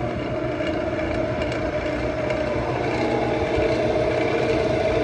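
Wood lathe motor running steadily at about 1200 RPM, its hum made of several steady tones.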